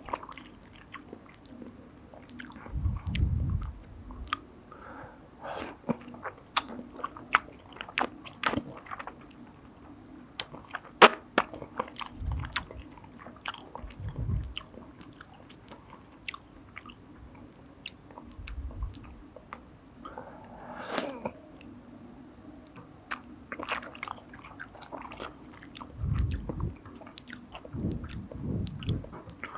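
Close-up eating sounds of soup noodles: wet chewing with scattered sharp clicks and slurps, and low thuds every few seconds, over a faint steady hum.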